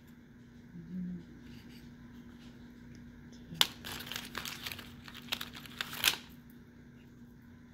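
Clear plastic zip-top bag crinkling and rustling as a hand rummages in it: a burst of crackles for about two and a half seconds in the middle, with a sharp crack where it starts and another where it stops.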